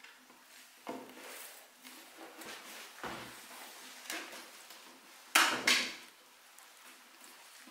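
Handling knocks and scrapes of clamps being fitted against the edges of a wooden panel, with two sharp clacks, the loudest sounds, about five and a half seconds in.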